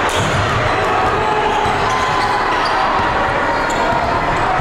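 A basketball being dribbled on a gym floor, repeated thuds of the ball amid the hum of a gym crowd.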